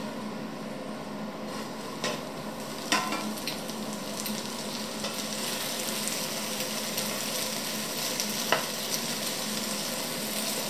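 Diced potatoes sizzling gently in oil in a nonstick frying pan over very low heat, stirred with a wooden spatula. A few sharp knocks come about two and three seconds in and again near the end.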